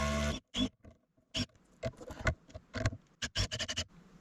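Milwaukee cordless impact driver running on a lag bolt, cutting off about half a second in. Then come scattered light clicks and taps, with a quick cluster near the end.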